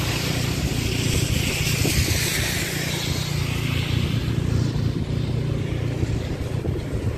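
Cars driving on a wet, slushy street: tyre noise on the wet asphalt swells and fades as they pass, over a steady low traffic hum.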